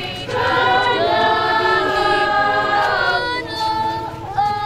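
A crowd of voices singing a hymn together in long held notes, with a short break in the phrase about three seconds in.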